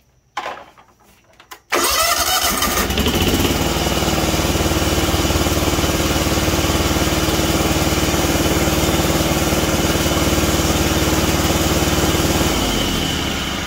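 Kawasaki FH500V V-twin engine on a John Deere LX277 riding mower cranked by its starter, catching after a second or so, revving up and then running steadily. It is firing on only one cylinder, a fault the mechanic puts down to mouse-chewed ignition coil wiring. Near the end the engine slows and winds down as a spark plug wire is pulled off.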